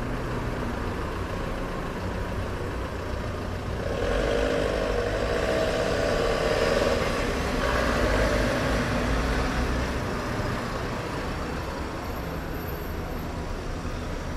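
Car engine running as the car pulls away and drives off, with a steady low hum that swells louder and wavers in pitch from about four seconds in.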